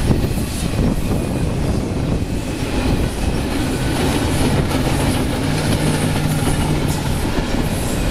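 Intermodal freight train's double-stack and trailer flatcars rolling past at speed, a steady loud rumble of wheels on rail with clicks from the rail joints.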